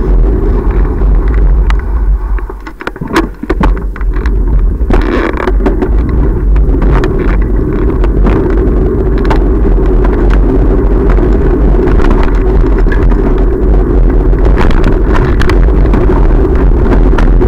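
Wind and road rumble on a bicycle-mounted camera while riding, a loud steady low noise. It drops away briefly about three seconds in, with a few sharp clicks, then comes back and holds.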